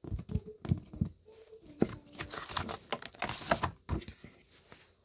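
Paper pages of a picture book being turned by hand: an uneven rustling and crinkling of paper with small taps and clicks of handling.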